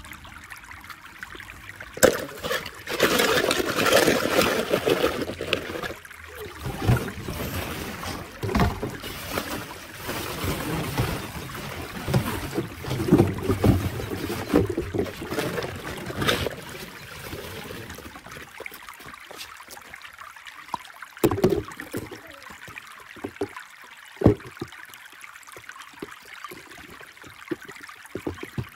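Hollow plastic play balls rustling and clattering as a hand rummages through a tub of them. After that, a few separate sharp clicks and knocks of plastic.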